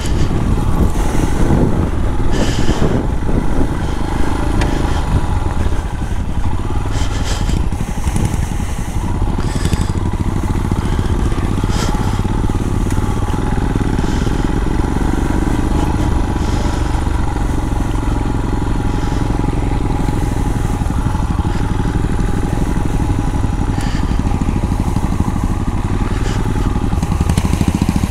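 Royal Enfield motorcycle engine running steadily at a cruising pace, with tyre noise on a wet, gravelly track and occasional clicks of grit and stones.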